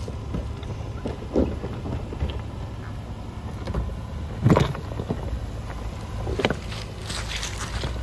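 Honda Ridgeline pickup crawling slowly over a rocky trail: its engine runs low and steady while the tyres crunch and knock on loose rock, with the loudest knock about halfway through.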